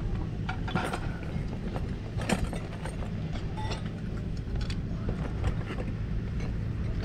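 Metal belt buckles clicking and clinking against each other as they are rummaged through by hand, in irregular short knocks over a steady low outdoor rumble.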